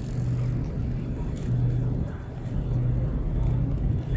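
A low, steady motor hum that fades and returns several times, over a rumbling background.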